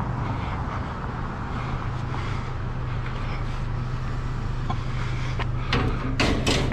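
A vehicle engine idling steadily with a low hum, with a few sharp knocks near the end.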